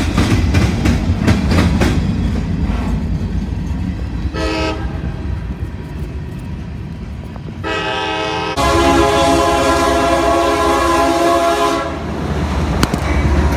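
Freight train passing close, its wheels clacking over the rail joints with a low rumble. A locomotive horn sounds two short blasts, then one long blast of about three seconds, after which the rumble of the passing train goes on.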